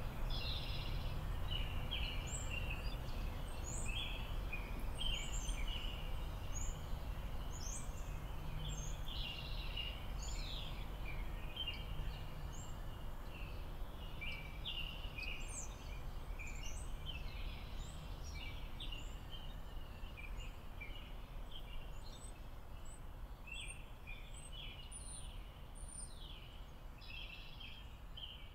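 Many small birds chirping and trilling in a woodland dawn-chorus-like mix, with a steady low rumble underneath; the whole ambience fades slightly toward the end.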